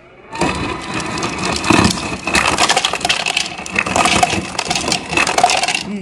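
LG refrigerator's door ice dispenser running in cube mode: the dispenser motor whines steadily while whole ice cubes clatter down the chute into a glass. It starts about half a second in and cuts off just before the end.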